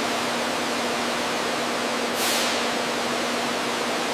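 A steady, loud hiss with a constant low hum under it. About two seconds in, a short, sharper hiss rises above it.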